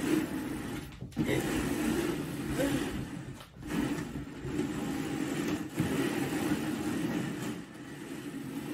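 Upturned plastic mixing bowls slid and shuffled across a tabletop, giving a steady scraping rumble in several long passes with short breaks about a second, three and a half, and six seconds in.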